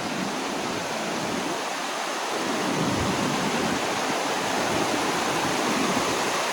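Waterfall rushing: a steady, even noise of falling water that grows a little louder about halfway through.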